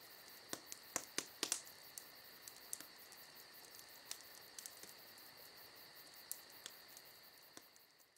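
Faint crackling of flames burning in a plant pot: scattered sharp pops and clicks, loudest and most frequent in the first second and a half, then sparser, over a steady high hum.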